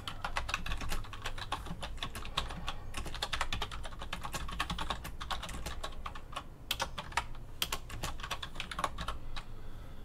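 IBM KB-9823 rubber-dome keyboard being typed on at a steady pace, a quick run of soft key clicks with a few louder strokes among them.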